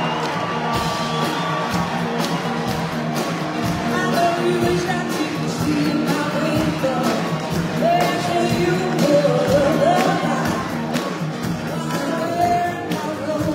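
Live rock band playing: electric guitars, drums and singing, with a steady beat and a wavering melody line over it.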